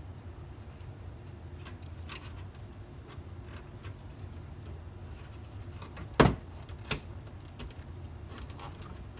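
Handling noise from the Aprilaire 400 humidifier's plastic housing as wires are pressed into its channels: scattered light clicks and rustles, with one sharp knock about six seconds in and a smaller click soon after.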